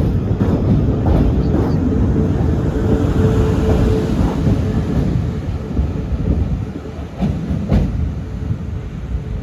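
South Western Railway Class 450 electric multiple unit at the platform: a steady low rumble of the train, with a held tone for a couple of seconds near the start and a few sharp clicks near the end.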